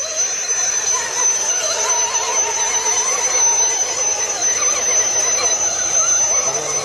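Electric motor and gearbox of a 1:10 scale RC crawler whining at a steady high pitch under throttle as it drives through muddy water, with a wavering, grinding lower noise beneath.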